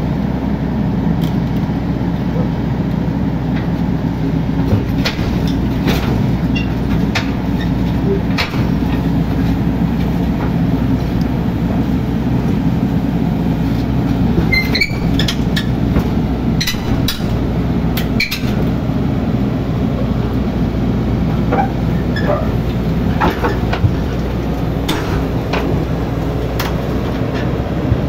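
Mini excavator's diesel engine running steadily, with scattered metallic clanks and knocks.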